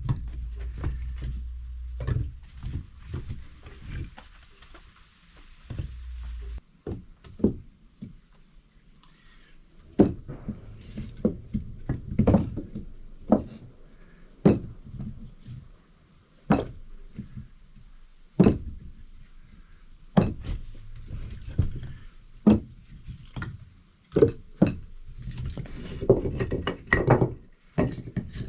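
A steady low rumble for about the first six seconds, then irregular sharp knocks and bangs, some in quick clusters, as of hard objects being struck or handled.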